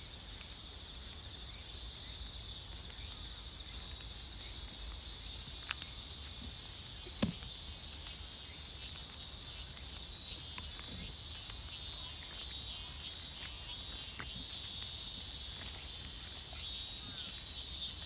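Field insects such as crickets chirring in a steady high-pitched band, with a low rumble underneath and two sharp clicks about six and seven seconds in.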